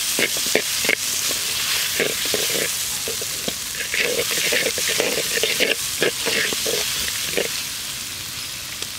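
Onions, tomatoes, dried red chillies, curry leaves and crushed ginger-garlic sizzling in oil in a wide black pot, stirred with a brass ladle that scrapes the pot in repeated strokes.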